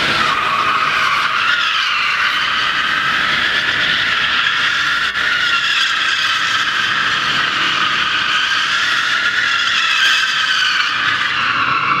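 A car's tyres squealing without a break as it spins donuts, the pitch wavering up and down; the screech eases slightly near the end.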